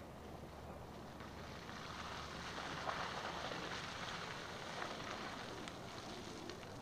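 Faint engine of a white off-road SUV driving through mud toward the listener, a steady hum that grows a little louder about two to three seconds in.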